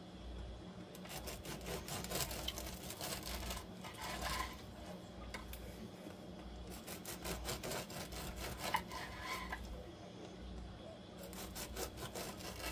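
Serrated bread knife sawing through a loaf of homemade sourdough bread on a wooden cutting board, in three bouts of quick back-and-forth strokes.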